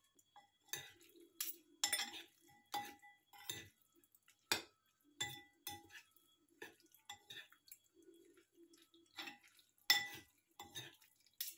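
Metal utensils clinking against a ceramic bowl as boiled green beans are stirred and tossed for a salad: a string of light, irregular clinks, each with a brief ring.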